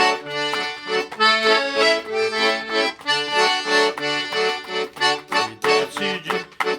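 Accordion playing an instrumental interlude of a hymn tune: held melody notes over a steady, pulsing bass-and-chord rhythm.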